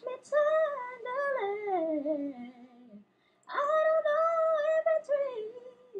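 A woman's voice singing in the played clip: a phrase that steps down in pitch over about three seconds, a short break, then a held higher note that slides down near the end.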